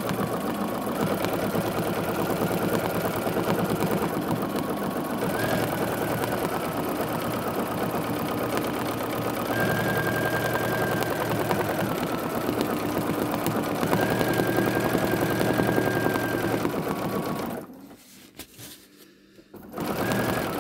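Bernina sewing machine running fast while free-motion quilting, the needle stitching rapidly with a steady motor whine that rises and falls a little as the speed changes. It stops about three-quarters of the way through and starts stitching again near the end.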